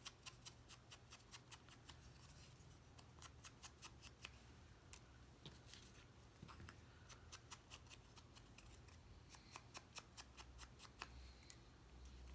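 Faint, quick light clicks and taps, several a second at first and then in irregular bunches, from hands working small cardstock pieces.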